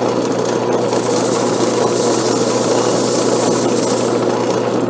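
Wood lathe motor running steadily with a constant hum while a spinning birch bowl is given its final sanding with 600-grit sandpaper. The sandpaper's rubbing hiss grows stronger from about a second in until shortly before the end.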